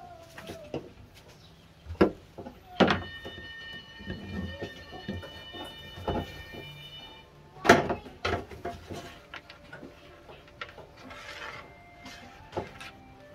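PVC pipes being handled and knocked against each other and the work surface, with a few sharp plastic knocks about two, three and eight seconds in. A steady high ringing tone sounds from about the third second to the seventh.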